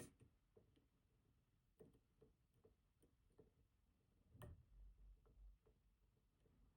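Faint, irregular small clicks and ticks of a lock pick working the spring-loaded finger pins of an ASSA Twin Combi lock as they are lifted toward their set height, with one louder click about four and a half seconds in.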